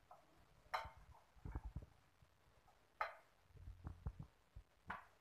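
Hands mixing raw fish pieces and sliced shallots in a glass bowl: faint wet handling and low thuds, with three sharp clicks, about a second in, three seconds in and near the end.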